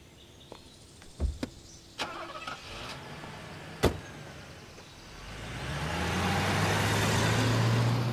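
A few light clicks and knocks, with one sharp knock just before four seconds in. Then a car engine comes up over the last three seconds, growing louder, its low hum rising slightly in pitch as the car pulls away.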